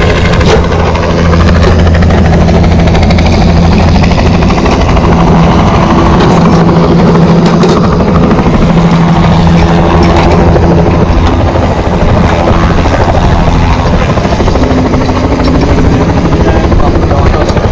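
Helicopter running loud and steady, its rotor and engine making a constant low drone, while lifting an HVAC chiller unit.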